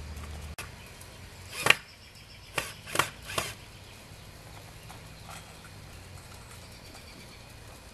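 Hammer driving a wooden stake into the ground: four sharp blows in under two seconds, the first the loudest.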